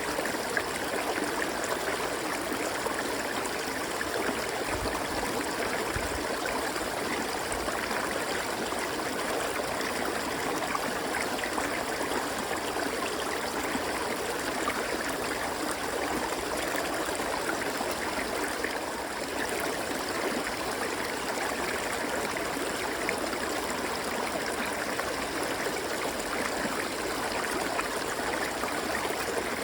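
River water flowing and rushing over its bed, a steady, unbroken wash of water noise.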